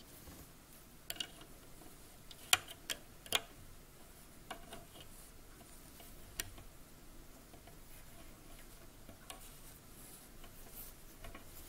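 Scattered light clicks and taps of a loom hook and fingers against the plastic pegs of a round knitting loom as loops are lifted and moved during a cast-off, the sharpest three close together about two and a half to three and a half seconds in.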